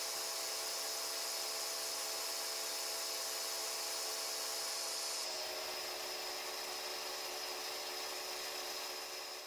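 Gravity-feed spray gun spraying white car paint: a steady hiss of compressed air, with a few faint steady tones beneath it. The sound shifts slightly about five seconds in and fades near the end.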